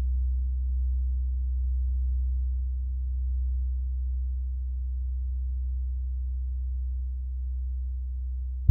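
95 cm Sun gong ringing on after a stroke: a deep low hum that wavers gently and slowly fades. A fresh soft-mallet stroke sets it sounding loudly again right at the very end.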